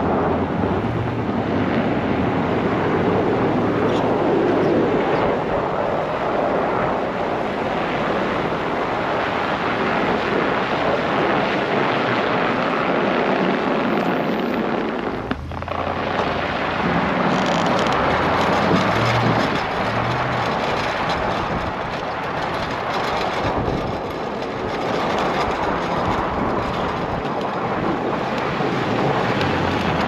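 Ram pickup truck with a plow blade pushing snow: the engine hums under a steady rush of wind and scraping snow, with a brief break about halfway through.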